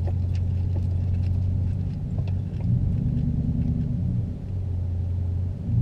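Engine and road rumble inside a moving car's cabin, a steady low drone that shifts up in pitch for a moment about halfway through.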